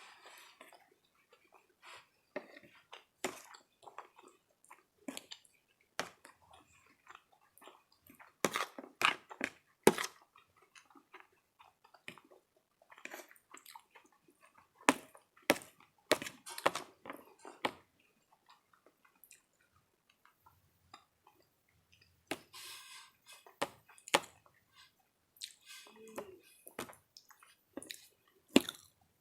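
Close-miked chewing and wet mouth smacking while eating a breakfast of hash browns, sausage and eggs, coming in irregular clusters of sharp clicks with short pauses between bites.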